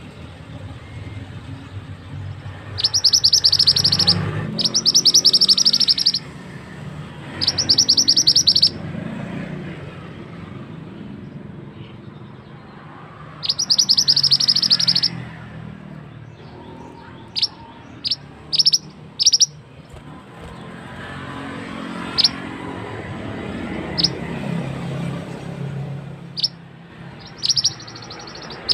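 Shrill, rapidly trilled calls of a male 'mandi darah' (mantenan) bird, a recorded lure call: four loud bursts of about a second and a half each in the first half, then a string of short, sharp high chirps in the second half.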